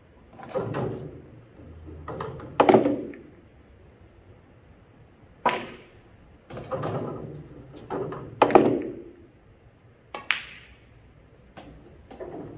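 Pool balls on a coin-op pool table: a series of sharp clacks of the cue striking the cue ball and balls knocking together, several followed by a short rumble of balls rolling and dropping into pockets.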